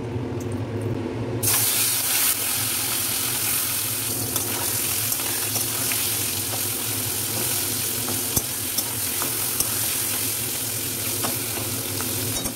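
Small whole fish frying in hot oil in a wok: a steady sizzle that starts suddenly about a second and a half in, with a few light taps of a metal spatula.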